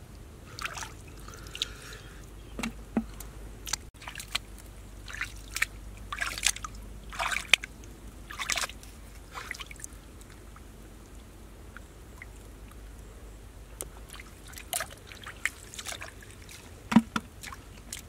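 Hands and feet sloshing and splashing in shallow muddy water while groping for fish, in irregular short splashes, with a lull past the middle and one sharper splash near the end.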